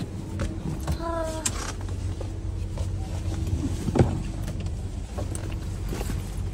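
Steady low hum of a waiting car's engine heard from inside the cabin, with people climbing in and rustling about; a single sharp knock about four seconds in.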